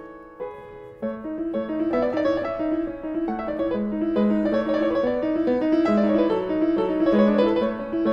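Background piano music: a flowing line of notes that dips to a quieter gap in the first second, then picks up again and runs on steadily.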